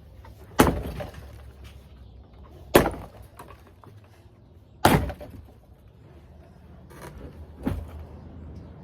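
Sledgehammer blows striking a hot tub during demolition: four heavy, separate impacts about two seconds apart, each with a short crack and rattle after it, the last one weaker.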